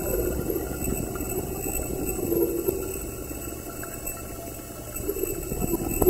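Ceramic mug picked up by a contact mic and processed live through a modular synthesizer: a dense crackling texture with a wavering low drone that swells and fades, over a faint steady high whine. It thins out a little past the middle and builds again near the end.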